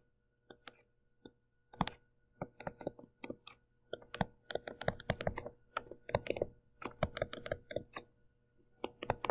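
Stylus tapping and scratching on a writing tablet as a formula is handwritten: a string of short, irregular clicks, sparse at first and densest in the middle.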